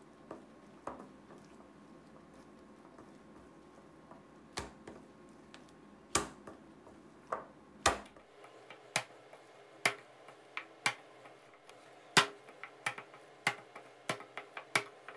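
Minced fatty pork paste being slapped by a gloved hand against a stainless steel bowl. There are a few scattered slaps at first, then slaps about twice a second in the second half. The paste is being kneaded and slapped to make it springy.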